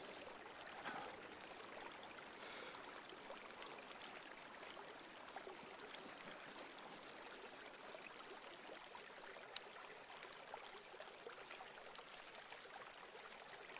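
Faint, steady rushing of a flowing creek, with one short sharp click a little before ten seconds in.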